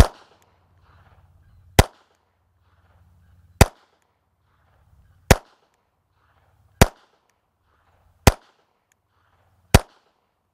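Seven single pistol shots from a small semi-automatic pocket pistol, fired at a slow steady pace about one and a half to two seconds apart. After the last shot the slide locks open: the magazine is empty.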